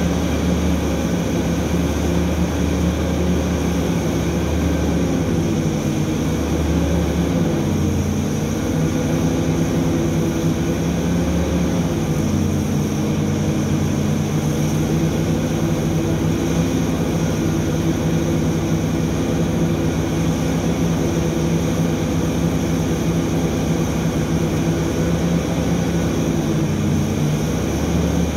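Heavy diesel engines of a Hitachi EX3600 mining excavator and a Komatsu HD1500 haul truck running steadily. The engine note shifts in pitch a few times as the excavator works under load.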